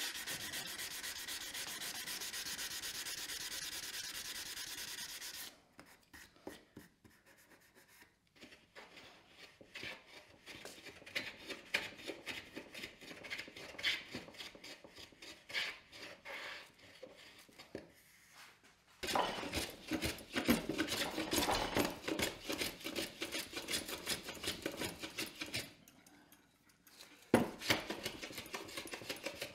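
A sanding block rubbed back and forth over a wooden block, a steady scratchy rasp for about five seconds. Then a metal hand plane taking repeated short strokes across the wood, the strokes growing louder and fuller past the middle.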